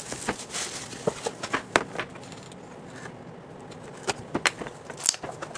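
Plastic shrink wrap being slit and pulled off a sealed trading-card box: crinkling with irregular sharp clicks and snaps, a few louder snaps among them.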